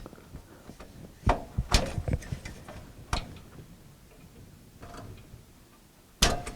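Screwdriver clicking and knocking on stubborn motherboard screws inside a PC case: a few sharp, irregular clicks with quiet handling between them, the loudest near the end.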